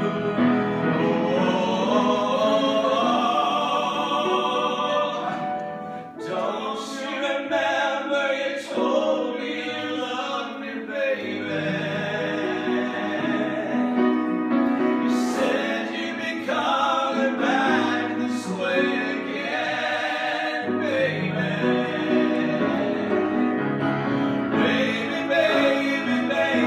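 A solo voice singing held notes with vibrato over a piano accompaniment.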